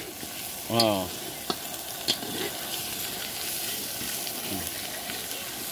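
Spice paste sizzling in hot oil in a large metal kadai, with a steady hiss, while a flat metal spatula stirs it and scrapes the pan with a few sharp clicks. The masala is being fried down (koshano) for a fish curry.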